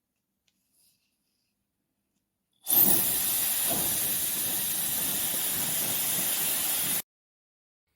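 YAPOY high-speed ionic hair dryer blowing: a steady rush of air that starts abruptly almost three seconds in, runs for about four seconds and cuts off suddenly.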